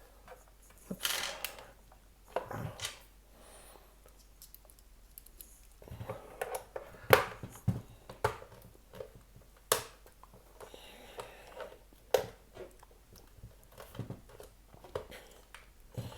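A pry tool working at the pressure-fitted case of a Cisco Meraki MR46 access point: scattered clicks, taps and scrapes, with sharper clicks about 7, 10 and 12 seconds in.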